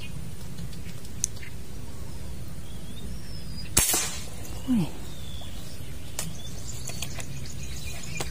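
An airgun fires a line-tethered fishing dart once, a single sharp crack about four seconds in, followed under a second later by a short low falling sound. Birds chirp in the background.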